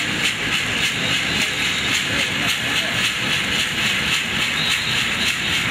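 Gourd rattle shaken in a steady rhythm, about four shakes a second, for a Chamacoco dance.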